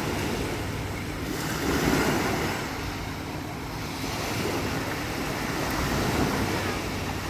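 Small waves breaking and washing up on a sandy beach, a steady surf rush that swells louder about two seconds in and again around six seconds.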